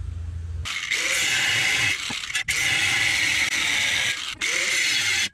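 Corded angle grinder cutting through a steel bar, a loud steady grinding whine that starts about a second in after a low hum and breaks off briefly twice.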